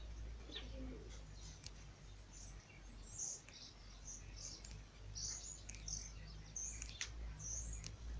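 Small birds chirping: many short, high chirps scattered throughout, over a low steady hum.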